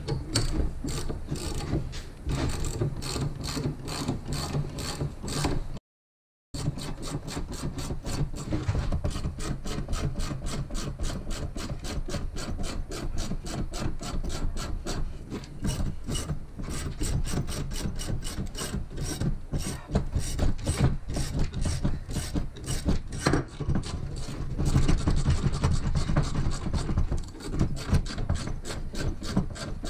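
Hand socket ratchet clicking quickly and evenly as it cranks down the threaded rods of a coil spring compressor, squeezing a Miata rear coil spring on its strut. The sound cuts out completely for under a second about six seconds in.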